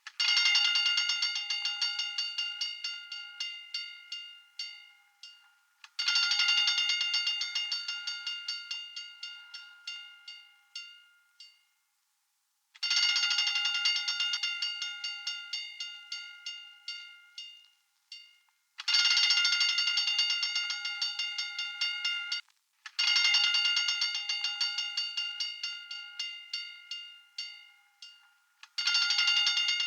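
Hand-cranked fire alarm bell ringing in repeated bursts of rapid strikes. Each burst starts fast and loud, then the strikes slow and fade as the cranking winds down. About six bursts, one every four to six seconds, some cut short abruptly.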